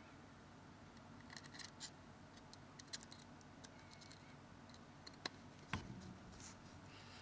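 Faint scattered clicks and ticks of a small screwdriver and tiny screws working on a smartphone's frame during reassembly, with a slightly louder knock about six seconds in.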